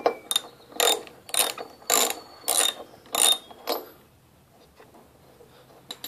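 Socket-wrench ratchet clicking in about seven short bursts, roughly two a second, as a spark plug is unscrewed from an old two-stroke Lawn-Boy mower engine with a deep 3/4 socket; the ratchet then falls quiet, with one more click near the end.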